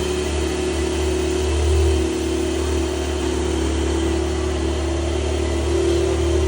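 A car engine running steadily at idle, a constant low rumble with no revving.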